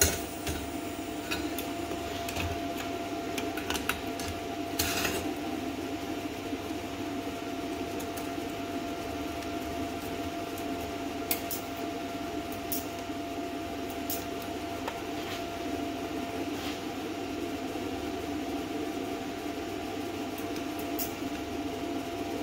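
Hynade PLC-50DP plasma cutter sitting powered on, its cooling fan running with a steady hum and a constant tone, with a few light clicks and taps of the torch and square against the steel. No cutting arc is heard: the air supply is shut off, so the machine will not even fire its pilot arc.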